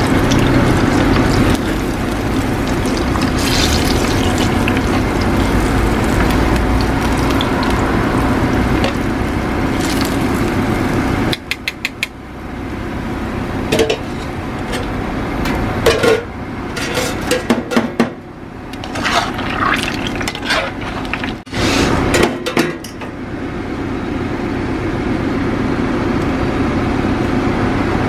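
Hot oil sizzling steadily as battered pieces deep-fry in a stainless wok. About eleven seconds in the sizzle drops away, and a run of short metal clinks follows as the wire spider strainer and tongs knock against the pan and the steel draining basket.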